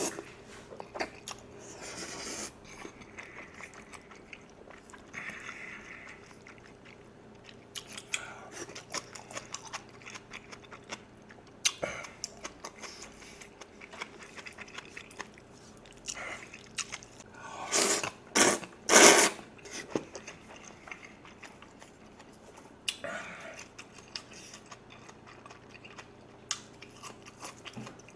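Close-miked chewing and slurping of jjajangmyeon (noodles in black-bean sauce): steady wet chewing with small mouth clicks, and two loud slurps of noodles in quick succession about two-thirds of the way through.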